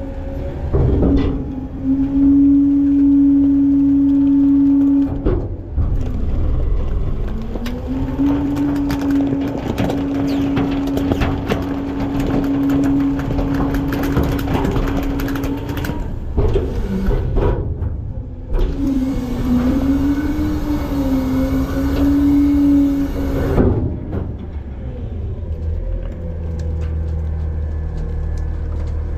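Front-load garbage truck's diesel engine revved up to drive the hydraulics, giving a steady whine that holds for several seconds three times, wavering in pitch the third time. It drops back to a low idle rumble near the end.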